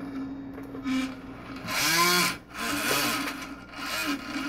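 Servo motor swinging a long metal arm back and forth, whining in several swells that bend in pitch, the loudest about two seconds in and weaker ones after, over a steady low hum: the PID loop is in a damped oscillation with the integrator gain set too high.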